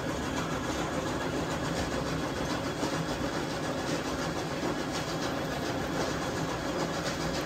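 An engine running steadily: a low, even drone that does not change.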